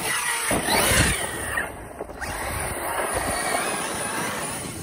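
ARRMA Outcast 6S RC truck's brushless electric motor whining up and down in pitch as it is driven hard on 6S LiPo power. Heavy thuds come about a second in and again around three seconds.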